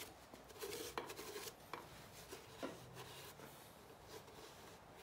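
Faint rubbing and scuffing of a shop towel wiping the bearing saddles of a Honda engine block, degreasing the bearing surfaces, with a few light clicks.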